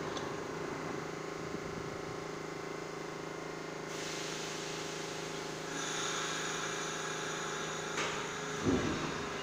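New York City subway train standing at the platform with its doors closed, its equipment humming steadily. About four seconds in a hiss of air starts, higher steady tones join a couple of seconds later, and a click and a thump come near the end as the train gets ready to pull out.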